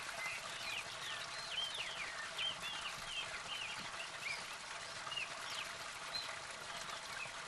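A small spring cascade pouring off an earth bank into a shallow pool, a steady splashing trickle. Birds chirp over it in short repeated calls, most often in the first few seconds.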